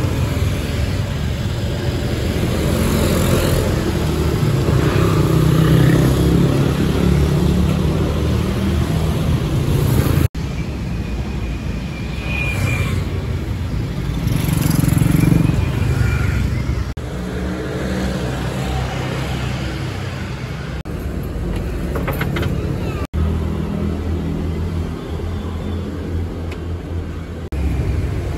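Road traffic rumble, with motor vehicle engines running and voices in the background. The sound changes abruptly about ten seconds in and again about twenty-three seconds in.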